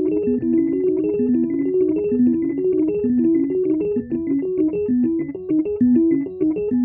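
Background music played on a keyboard instrument: a quick melody of short notes hopping up and down.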